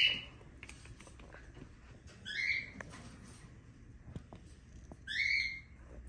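Peach-faced lovebird giving three short, high-pitched squawking calls: one at the start, one about two seconds in and one about five seconds in. Light ticking of its claws on a foil sheet comes between the calls.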